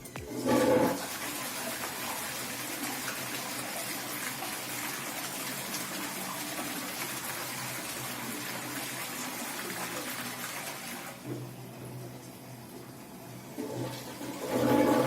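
Cistern toilet flushing, set off by a string pulling the ballcock: a surge of water in the first second, then water rushing steadily for about ten seconds before it drops to a quieter flow.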